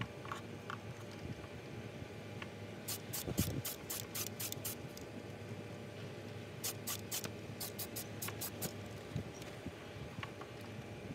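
Aerosol spray-paint can sprayed in short quick bursts, putting a base coat on revolver parts: a run of about eight hissing bursts, then after a short pause a second run. A low thump comes just after the first run begins.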